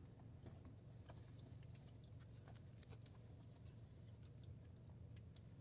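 Near silence inside a car: a faint steady low hum from the vehicle, with scattered faint small clicks and rustles.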